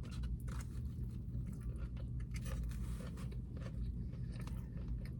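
Close-miked chewing of a taco: a steady run of small wet clicks and smacks from the mouth.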